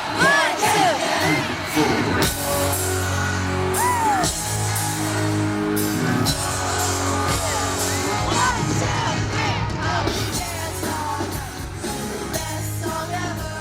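Live pop band playing with singing, heard from the audience, with fans yelling and whooping over it, most in the first few seconds.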